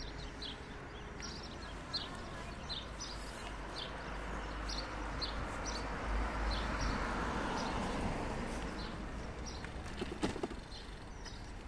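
A car drives past on the street, its tyre noise swelling and fading around the middle, over a low wind rumble on the microphone. Short high chirps of a small bird repeat throughout.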